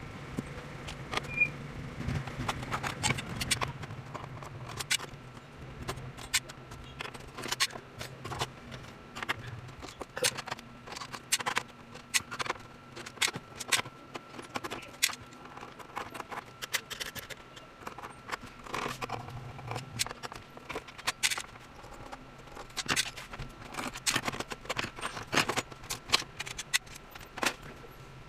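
Hard plastic and metal parts being handled on a repair bench: irregular sharp clicks and light taps, many of them, over a faint steady hum and a thin high tone.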